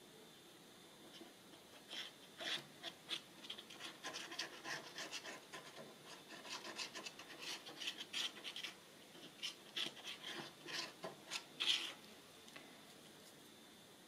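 Scratchy rubbing strokes on paper while a cut piece is glued down, a few strokes a second, beginning about two seconds in and stopping near the end.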